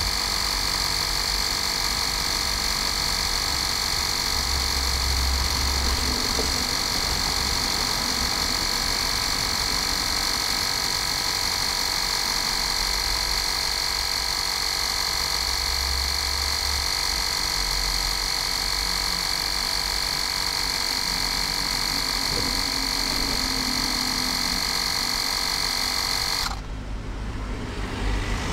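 Bosch EasyPump cordless mini compressor running steadily while inflating a car tyre, a steady high-pitched whine over motor noise. It cuts off suddenly near the end as the tyre reaches its 2.2 bar target pressure.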